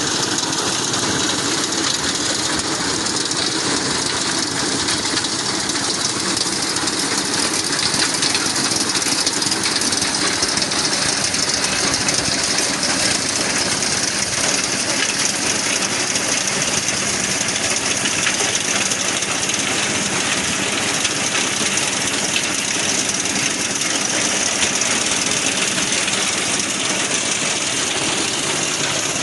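An engine running steadily without a break, with a strong hiss over it.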